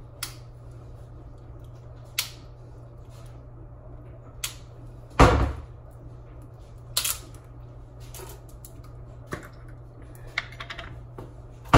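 Kitchen handling noise: scattered clicks and knocks of containers and utensils on a counter, with one heavier thump about five seconds in and a quick run of clicks near the end, over a steady low hum.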